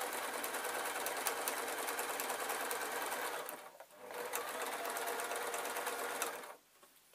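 Domestic electric sewing machine stitching at a steady speed, the needle ticking rapidly. It pauses briefly just past halfway, runs again, and stops about a second before the end.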